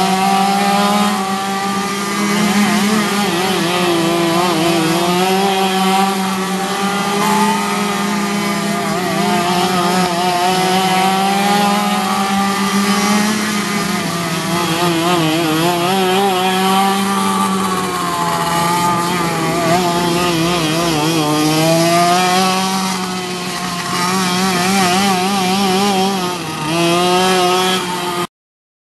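Several racing kart engines on a dirt oval, their pitch rising and falling over and over as they accelerate down the straights and back off into the turns, over a steady low drone. The sound cuts off suddenly just before the end.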